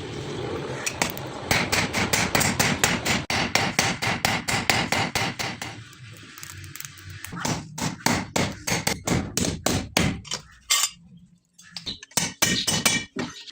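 A rapid series of sharp knocks or strikes, about four to five a second, with brief lulls about six seconds in and again near eleven seconds.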